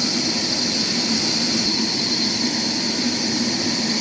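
Sawmill machinery running steadily: a constant hum under a strong, even hiss, with no strokes or breaks.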